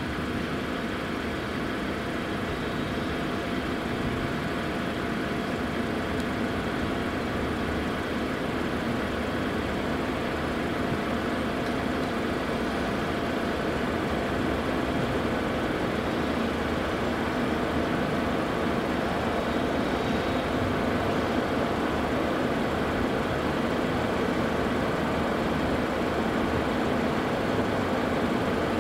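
Steady distant whine and rush of a Cessna Citation M2's twin turbofan engines during landing and rollout, growing slightly louder toward the end.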